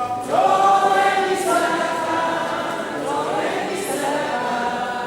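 A group of voices singing together in chorus, in held notes that move from pitch to pitch.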